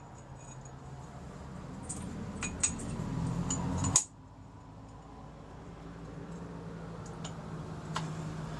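Steel workpiece and machinist's parallels clinking against the steel jaws of a milling vise as the piece is seated by hand: a few sharp metallic clicks, the loudest about four seconds in and another near the end, over a low hum.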